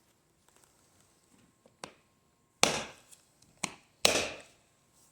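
A few sharp knocks and clatters of hard objects being handled and set down: a light click, then two louder clacks about a second and a half apart with a smaller click between them.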